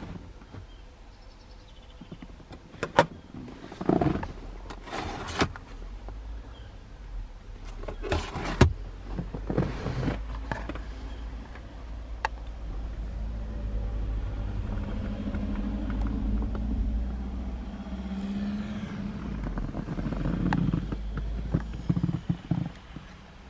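Clicks and knocks of a car's interior trim being handled, several sharp ones in the first half. Then a steady low hum with a faint tone for about ten seconds.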